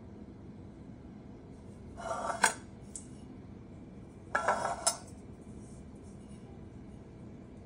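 Stainless steel saucepan of water clattering briefly twice, about two seconds apart, with a ringing metal tone, each bout ending in a sharp clink.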